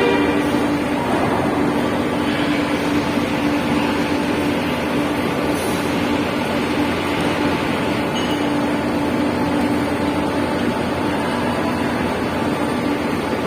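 Steady engine drone with a constant low hum, unbroken throughout.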